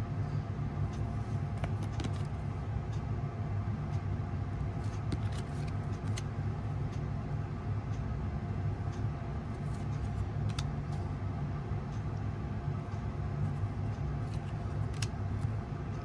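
A steady low hum, with faint scattered ticks and rustles of thick foil Upper Deck Artifacts hockey cards being shuffled through in the hands.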